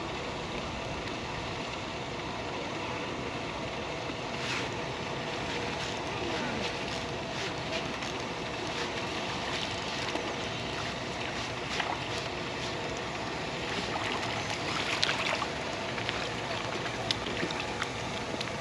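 Steady outdoor wind and water noise, with scattered light clicks and taps through the latter part.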